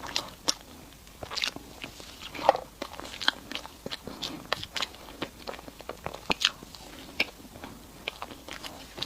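A person chewing and biting sweet food such as mochi, with many short, sharp mouth clicks and smacks at an irregular pace.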